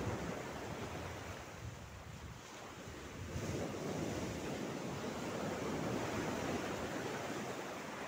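Small sea waves lapping and washing over a pebble and rock shoreline. The wash eases off a second or two in, then swells again at about three seconds as the next wave comes in.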